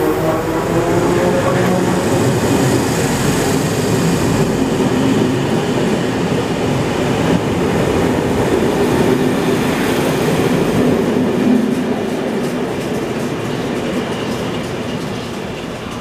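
CFL Series 2000 electric multiple unit running past along the platform: a steady rumble and clatter of wheels on rails that eases off over the last few seconds.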